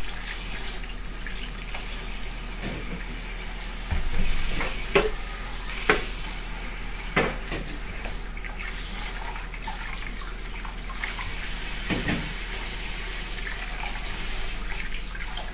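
Kitchen tap running steadily into a bowl of freshly picked vegetables as they are rinsed by hand. A few brief louder sounds come as the vegetables are handled, the loudest about five seconds in.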